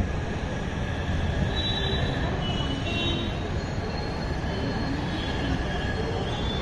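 Steady city background noise with a few faint, thin high-pitched squeals over it.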